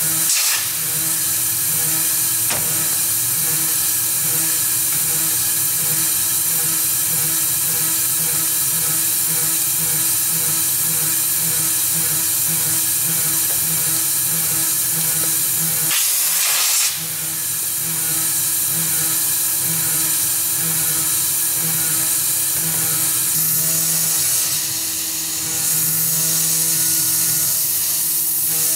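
Tormach 440 CNC mill spindle driving a 3/16-inch carbide end mill through aluminum: a steady, high cutting whine with several held tones, over the hiss of the coolant mist nozzle. The sound dips briefly about seventeen seconds in, then carries on.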